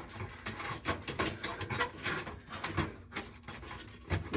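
Scattered light clicks and scrapes of metal as a hot-surface gas oven igniter and its wire lead are worked loose and pulled forward through the oven floor.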